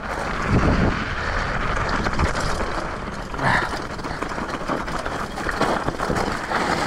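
Btwin Rockrider mountain bike descending a rough downhill trail at speed, heard from a helmet-mounted camera: steady wind rush and rattling tyre and frame noise over the rocky ground, with heavier thumps about half a second in and again around three and a half seconds.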